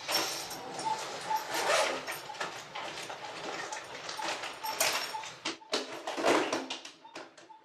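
Rustling and clatter of medical kit and packaging being handled beside CPR on a patient simulator manikin, with a faint short beep repeating about twice a second.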